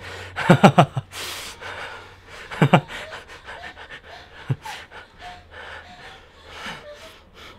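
A man laughing: a run of quick pulsed laughs about half a second in, a sharp breath in just after, another short burst of laughter near three seconds in, then softer breathy chuckles.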